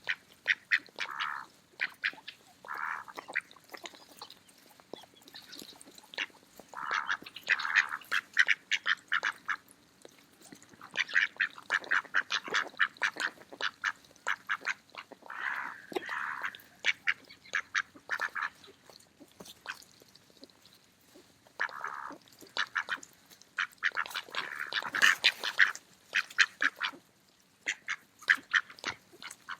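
Mallard ducks feeding: a scatter of short quacks over rapid runs of sharp clicks from their bills snapping at food.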